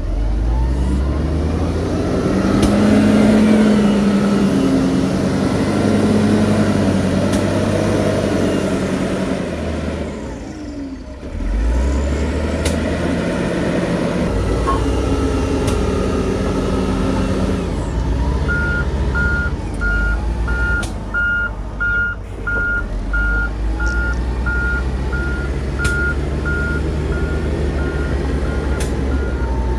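Diesel engines of heavy earthmoving machinery running and revving under load. The engine note drops away briefly before picking up again, and about two-thirds of the way through a reversing alarm starts beeping steadily, a little over once a second.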